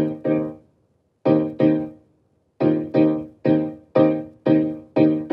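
Piano music of short struck chords that fade quickly. It starts with two pairs separated by gaps, then settles into a steady run of about two chords a second.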